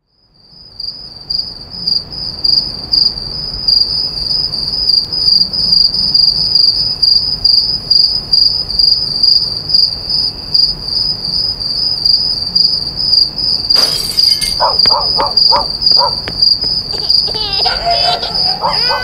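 Crickets chirping steadily in a pulsing, high-pitched trill that fades in at the start. About fourteen seconds in, a sudden burst of noise is followed by a string of short, sharp sounds and then a wavering wail near the end.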